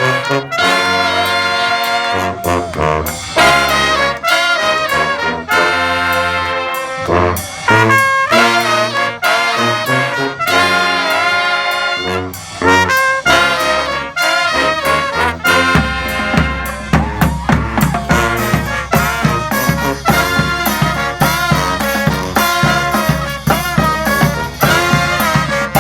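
Brass band playing, trumpets and trombones carrying the tune. About two-thirds of the way through, drums come in with a steady driving beat under the horns.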